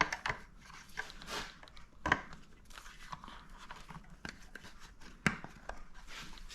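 Hands working a rubber dust boot back over the back of a motorcycle headlight, with rustling and rubbing and a few sharp clicks about two and five seconds in.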